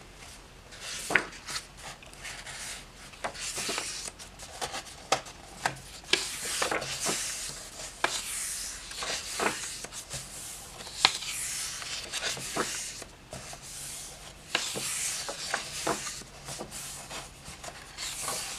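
Paper pages of a hardback coloring book being turned one after another, with hands rubbing the spreads flat. Soft swishes of paper come every second or two, with short crisp clicks as pages land and fingers slide over them.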